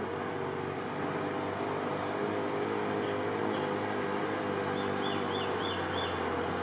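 Steady engine-like drone with a low hum, unchanging throughout, and a few short high chirps about five seconds in.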